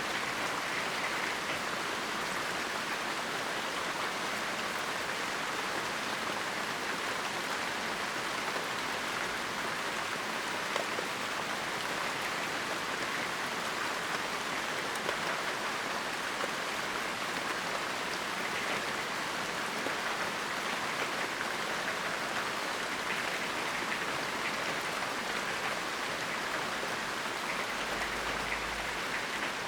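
Steady rain falling, an even hiss with no let-up, with a few slightly louder drop impacts now and then.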